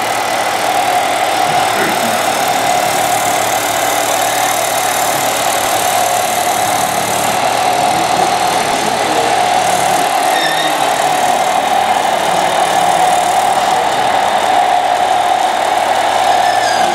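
Two radio-controlled scale models of Hamm H20i single-drum road rollers running, a steady engine-like drone with a constant mid-pitched hum.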